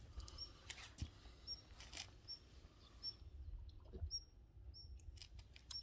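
A bird repeating one short, high chirp about twice a second, with a few faint clicks and knocks.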